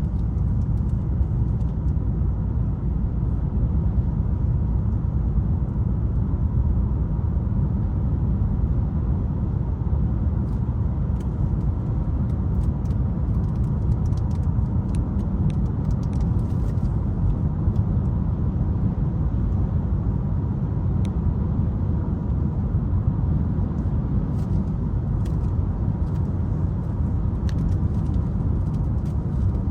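Steady low road and engine rumble of a Mitsubishi Outlander being driven, heard from inside the cabin, with a few faint scattered clicks.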